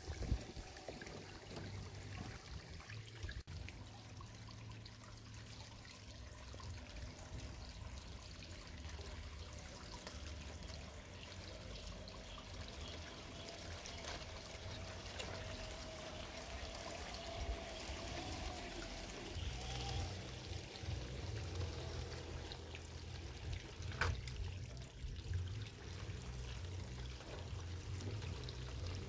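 Garden pond water feature trickling and splashing steadily, with a low rumble underneath and a faint wavering whine through the middle.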